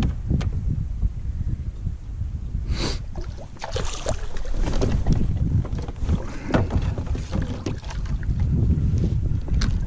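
Wind buffeting the microphone with a steady low rumble, with several irregular splashing and sloshing sounds of water a few seconds in.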